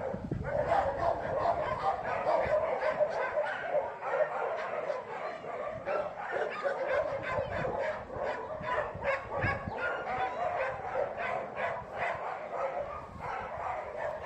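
Dogs barking and yipping without a break, the barks close together and overlapping.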